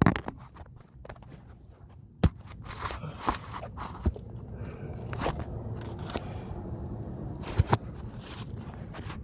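A few sharp knocks and clicks with light scraping, scattered and irregular: metal exhaust parts and tools being handled while fitting the up pipes to the turbo collector.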